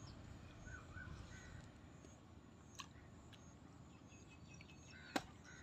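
Faint open-air ambience with a low rumble of wind, a few short distant bird calls in the first second or so, and a sharp click about five seconds in.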